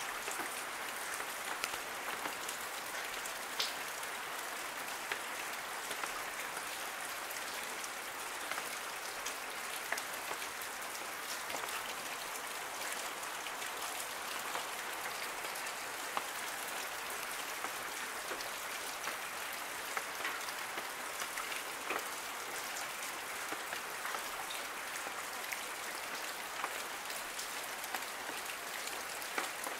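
Steady rain falling: an even hiss with many separate drops tapping at irregular moments.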